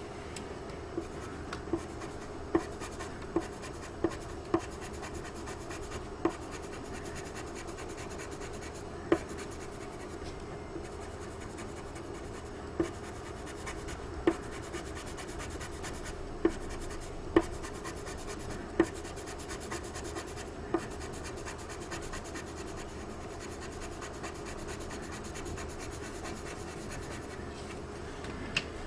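Colored pencil shading on drawing paper: the pencil rubs steadily back and forth over the paper, with sharp little ticks now and then, most of them in the first two-thirds.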